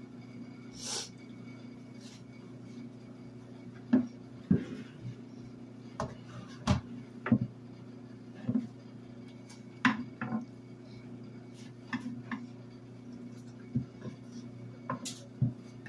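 Irregular sharp knocks of a kitchen knife and an eggplant against a bamboo cutting board as the eggplant is trimmed, about a dozen starting a few seconds in, over a steady low hum.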